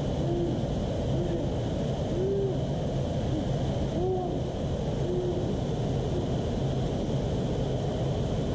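Water pouring over a concrete weir into the pool below, a steady low rush. Over it, a series of short low calls, each rising then falling in pitch, about one a second, stopping about five seconds in.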